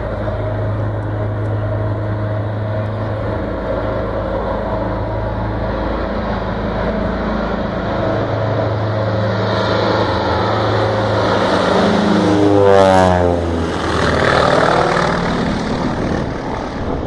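Grumman HU-16 Albatross's twin radial engines and propellers in a low flyby: a steady drone that grows louder as the seaplane approaches, is loudest as it passes overhead about thirteen seconds in, then drops in pitch as it moves away.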